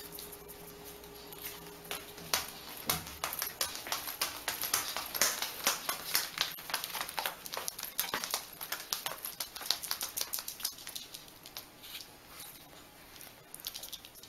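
Dog boots clicking and clattering on a hard floor as a small dog takes quick, uneven, stumbling steps. The taps start about two seconds in and are densest through the middle.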